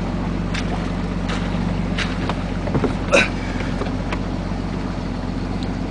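Off-road 4x4's engine running steadily, heard from inside the cab, with a few short knocks and rattles; the sharpest comes about three seconds in.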